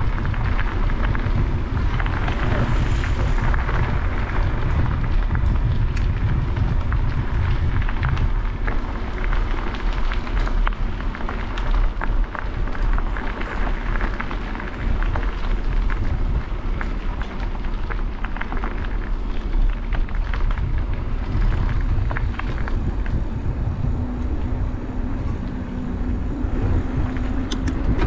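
Wind buffeting the microphone of a camera carried on a moving bicycle, a steady low rumble, with tyres crackling over a gravel track. A low hum comes in near the end.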